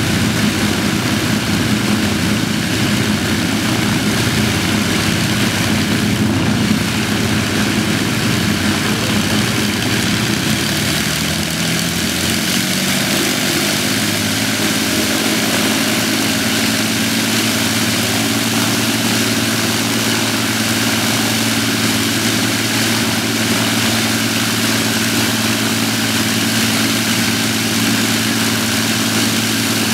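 Avro Lancaster's four Rolls-Royce Merlin V12 engines running together on the ground during an engine run, propellers turning. About twelve seconds in, the engine note rises and then holds steady at the higher pitch.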